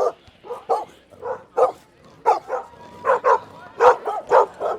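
Dog barking repeatedly: about a dozen short, sharp barks in irregular runs.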